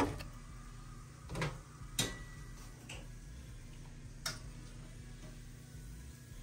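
A few light clicks and knocks from kitchenware being handled, about five spread over several seconds, over a low steady hum.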